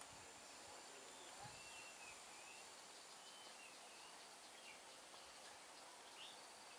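Very faint outdoor ambience with a handful of short, scattered bird chirps spread through it, and a thin, high steady tone that stops about halfway.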